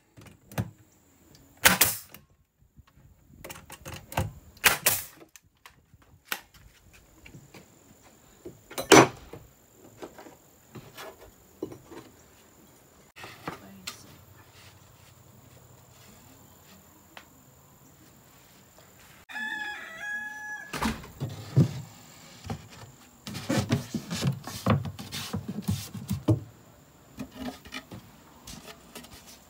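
Cordless 18-gauge brad nailer firing nails into pine framing, a sharp shot each time, in the first ten seconds. About twenty seconds in, a rooster crows once. Near the end, wooden knocks and rubbing as a plywood shelf board is handled and fitted.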